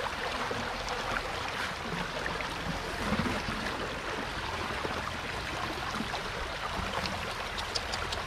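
Steady rush of running floodwater, with a few faint ticks near the end.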